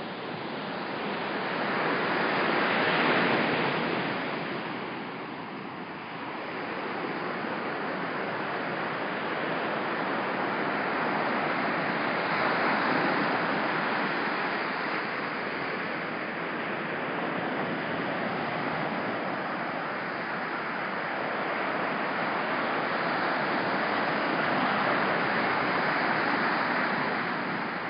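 Ocean surf breaking on a beach, a steady wash that swells and eases every ten seconds or so as the waves come in.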